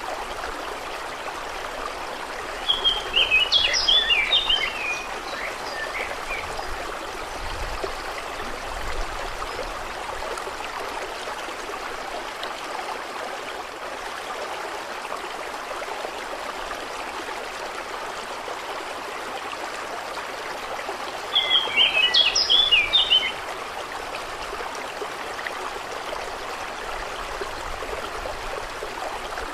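Steady rushing water, with a small bird singing two short, quick twittering phrases, one about three seconds in and another about twenty-one seconds in.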